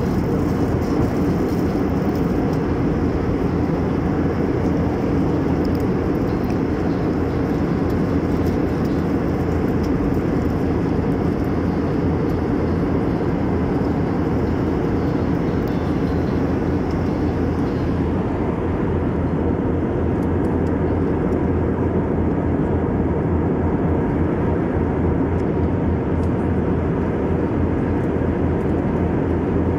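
Steady cabin noise of a jet airliner in cruise, heard from a window seat over the wing: an even drone of engines and airflow, heaviest in the low range, its upper hiss softening a little about eighteen seconds in.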